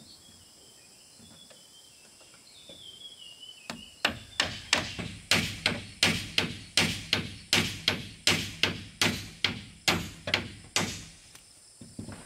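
Hammer striking wood in a steady run of about three blows a second, starting about four seconds in and stopping shortly before the end.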